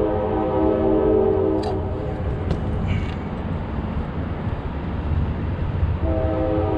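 Train horn blowing a long steady chord that cuts off under two seconds in and sounds again about six seconds in, over a continuous low rumble, with a few small clicks in the gap.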